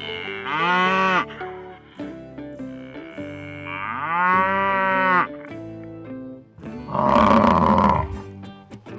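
Two drawn-out lowing moos from a large bovine, then a louder, harsher bellow about seven seconds in, over soft background music.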